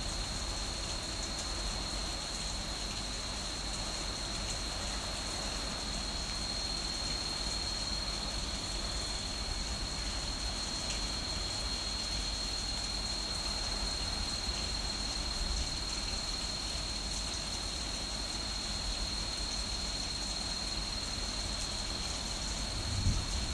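Heavy rain in a thunderstorm: a steady, even hiss with a low rumble underneath, and a thin high tone held steadily over it.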